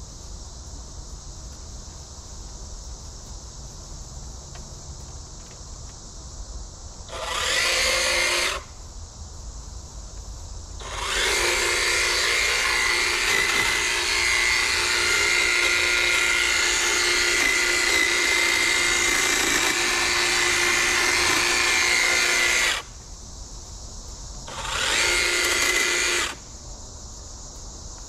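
Kobalt 80V brushless cordless hedge trimmer with dual-action blades, running in bursts as it cuts through bushes: a short run about seven seconds in, a long steady run of about eleven seconds, then another short run near the end. Between runs, a steady chorus of insects.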